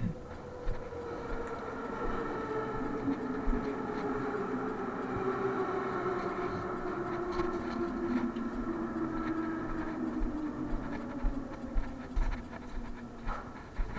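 Moscow Metro train running, several motor whine tones falling slowly and steadily in pitch as the train slows. Scattered low knocks run underneath.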